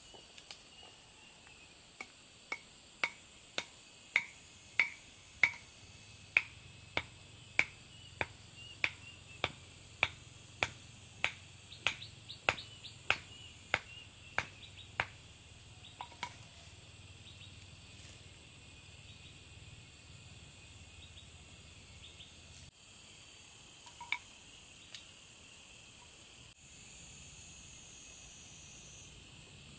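A run of about twenty sharp clicks, evenly spaced at a little under two a second, starting about two seconds in and stopping about fifteen seconds in. Under them is a steady high insect drone of crickets or cicadas.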